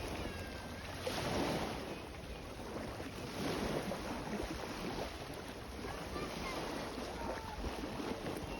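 Sea waves breaking and washing ashore, a steady rushing surf that swells louder about a second in and again around three and a half seconds in, with wind on the microphone.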